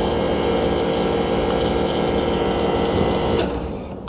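Refrigerant recovery machine running with a steady motor hum and hiss, then shutting off and winding down about three and a half seconds in.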